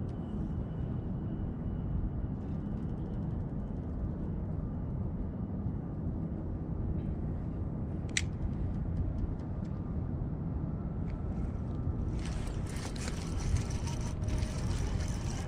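Steady low rumble of wind and water around a float tube, with faint ticking and one sharp click near the middle. About twelve seconds in, a louder hissing splash of disturbed water begins.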